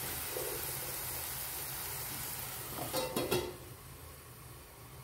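Tomato-and-onion gravy base sizzling in a frying pan. About three seconds in, a stainless steel lid clatters briefly onto the pan, and the sizzle turns quieter under the lid.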